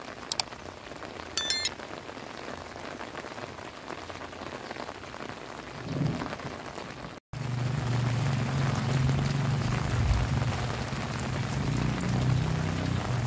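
Heavy rain falling steadily, with a few sharp ticks and a brief high-pitched squeak about a second and a half in. About seven seconds in the sound cuts out for an instant and returns louder, with a steady low rumble under the rain.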